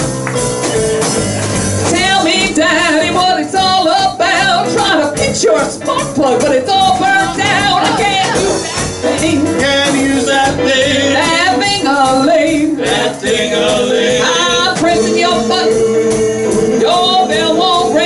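Live blues band playing an instrumental passage: a lead instrument runs through quick, wavering phrases over a steady beat.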